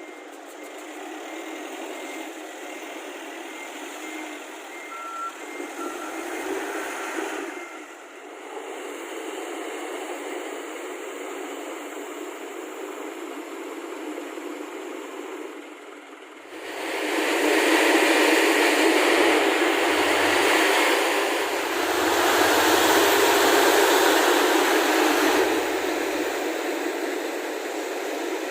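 Heavy construction machinery with diesel engines running. A reversing alarm beeps repeatedly over the engine noise for the first several seconds, and a bit past halfway the engine noise becomes much louder for about ten seconds.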